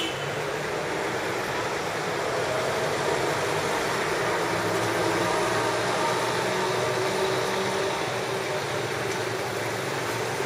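Steady hum of an engine running at idle under a wash of street noise.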